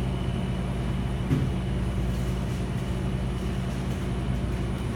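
Steady low hum of kitchen machinery, with several low tones held throughout.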